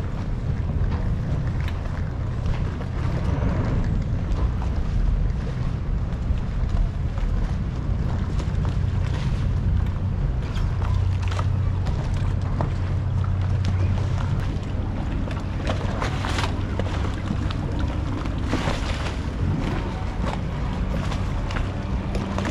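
Motorboat engine running with a steady low drone, with scattered light knocks.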